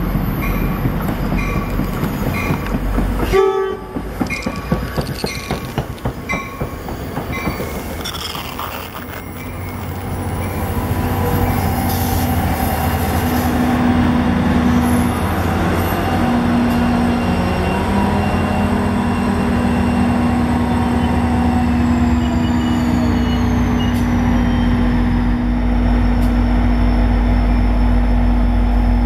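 A diesel-hauled commuter train arriving: a bell rings briefly in the first few seconds, then the coaches roll by with wheel and rail noise. From about the middle on, the diesel locomotive's engine runs with a steady, even hum as the train stands at the platform.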